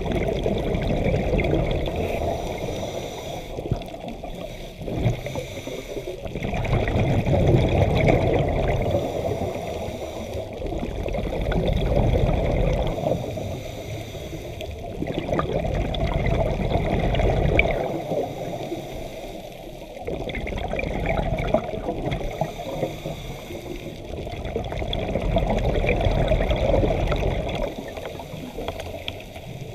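Scuba diver breathing through a regulator underwater: exhaled bubbles gurgling out in swells about every four to five seconds, with quieter inhales between them.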